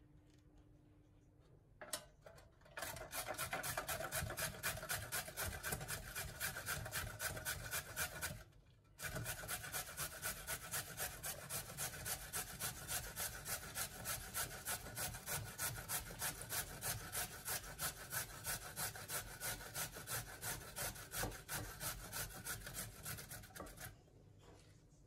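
A carrot being grated on a stainless-steel box grater into a bowl, with quick, even rasping strokes. The grating starts after a knock about two seconds in, breaks off briefly about eight seconds in, then runs on steadily until near the end.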